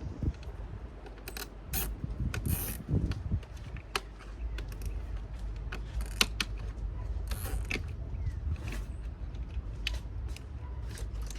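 Irregular clicks, taps and short rattles of hand tools and small metal parts being handled and worked, a few seconds apart, over a steady low rumble.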